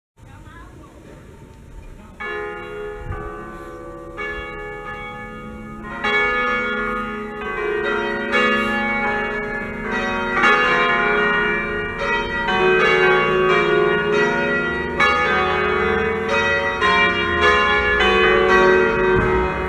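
A six-bell peal of 1928 Fratelli Ottolina bronze church bells in D-flat rung a distesa, the bells swung full and striking in turn. They join in one after another from about two seconds in, growing louder into a dense, continuous peal: the second call to the festive evening Mass.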